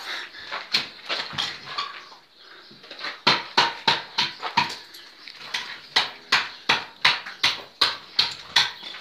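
Sharp metallic clinks and scrapes of a mason's trowel working mortar in a bucket: a few scattered knocks at first, then a steady run of about three clinks a second from about three seconds in.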